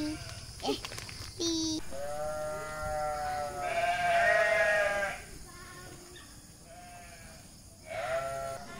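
Farm livestock bleating: one long drawn-out bleat about two seconds in, followed by three shorter bleats.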